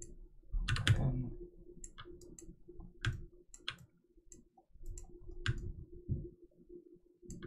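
Computer mouse clicking: a dozen or so sharp single clicks at irregular intervals, with a louder knock about a second in.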